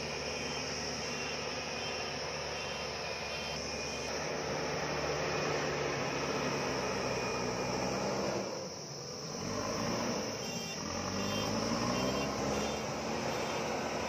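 JCB backhoe loader's diesel engine running under load as the front bucket pushes and levels soil. The engine note drops for a moment a little past halfway, then climbs again.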